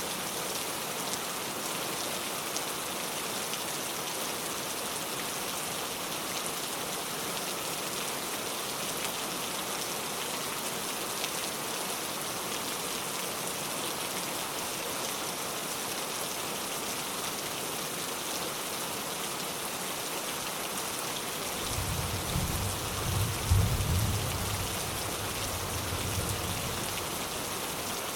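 Steady rain falling, with a low rumble of distant thunder that swells late on and lasts about five seconds.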